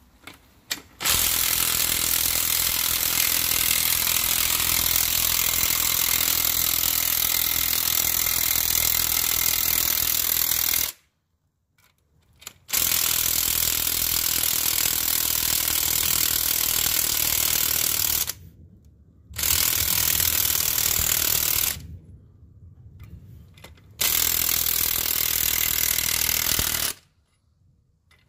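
Power impact wrench hammering as it turns the threaded rods of a coil-spring compressor on a Peugeot Partner / Citroën Berlingo front strut, compressing the coil spring. It runs in several long bursts of a few seconds to about ten seconds, with short pauses between them.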